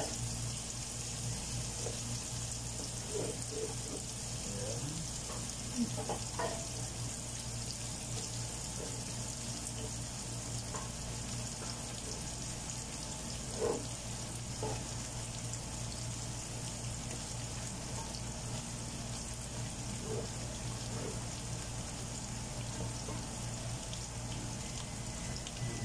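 Steady sizzling of onion, garlic and chili frying in butter in a large pot, over a low steady hum. A few light knocks of a metal spoon against the pan as cooked chicken is scooped in.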